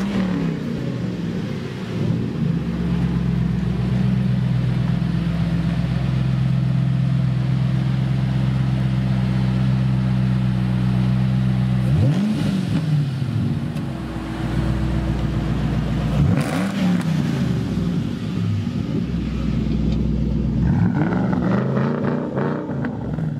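Ford Shelby GT500's supercharged V8 idling steadily through its exhaust, then revved about halfway through, again a few seconds later, and in several quick blips near the end.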